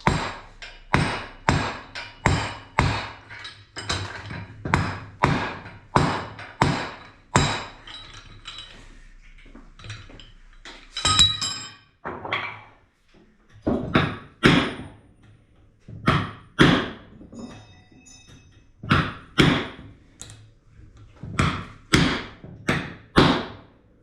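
Hammer blows on a forge-welded iron thrust washer, about two a second, with a pause near the middle before the blows resume.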